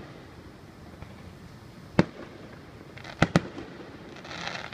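Fireworks bursting overhead: a single bang about two seconds in, two quick bangs just after three seconds, then a short crackle near the end.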